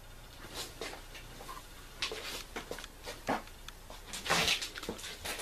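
Clothing rustling and irregular bumps and knocks as a person moves about right in front of the microphone, loudest about four seconds in.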